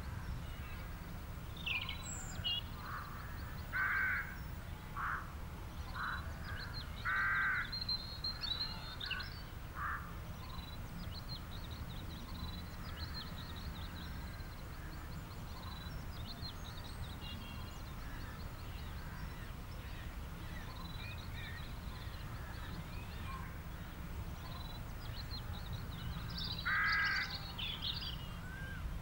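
Outdoor bird ambience: a few loud, harsh, short calls about four, seven and twenty-seven seconds in, with many fainter high chirps, over a steady low rumble.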